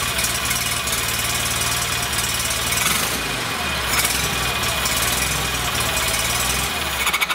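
Wheel Horse 520H garden tractor engine idling steadily, run briefly after a fresh oil change to circulate the new oil. It shuts off right at the end and the sound dies away.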